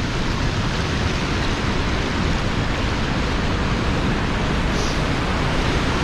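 Steady, even rush of a large waterfall on a glacial river, heavy water plunging over a basalt ledge.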